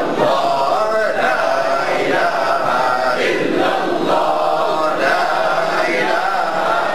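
A group of men chanting dhikr together in Arabic, many voices overlapping in a continuous chant.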